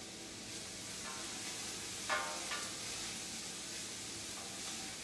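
Minced garlic sizzling in a stockpot on the stove as it is stirred, a steady frying hiss, with a couple of short metallic clinks about two seconds in as the spoon strikes the pot.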